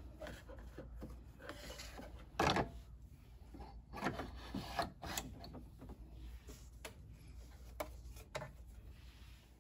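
Hands fitting a plastic embroidery hoop into the embroidery unit of a Brother Luminaire XP1: fabric and plastic rubbing and scraping, with a few sharp clicks. The loudest scrape comes about two and a half seconds in.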